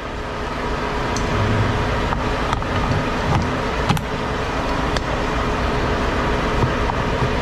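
Steady rumble of an idling semi truck's diesel engine, with a few sharp metal clicks and knocks as the trailer's air-hose gladhands and coiled lines are handled.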